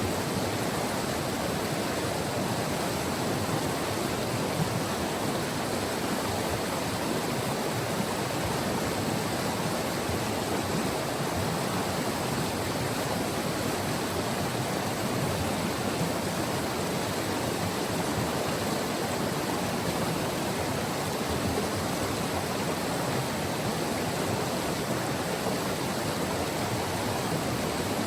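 White River, a glacial river, flowing and rushing over its bed: a steady, even water noise with no breaks.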